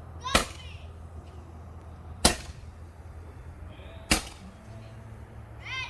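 Handheld firework firing three sharp pops, about two seconds apart.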